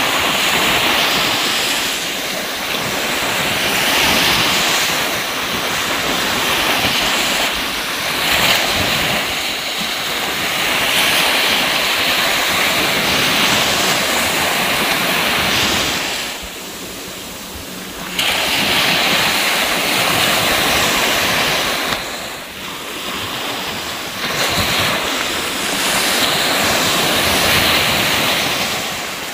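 Steady rushing noise of surf and wind, swelling and easing every few seconds, with a quieter stretch a little past halfway.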